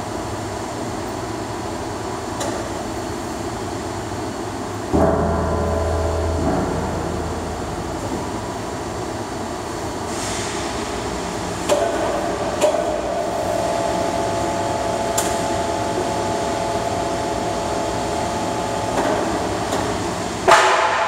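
Steady din of heavy shop machinery as an overhead crane lowers a large corrugated steel panel. A short low hum comes about five seconds in. A steady motor whine runs through the second half, and a sharp metal clank comes near the end.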